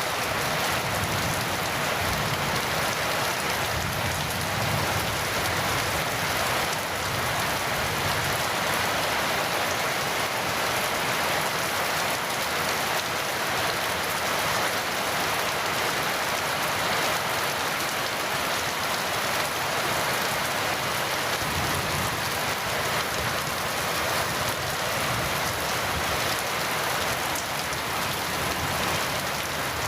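Heavy rain falling steadily: an even, dense hiss of many drops that keeps the same level throughout.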